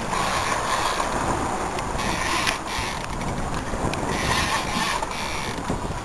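A boat under way at sea: engine, water rushing past the hull and wind buffeting the microphone, making a steady, rough noise.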